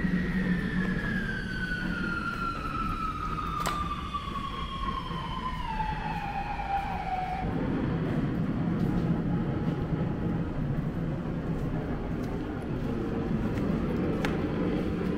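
A single whistle glides steadily down in pitch for about seven and a half seconds and then stops, over a steady low rumble.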